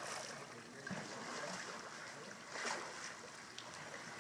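Water splashing and lapping against a small boat under way.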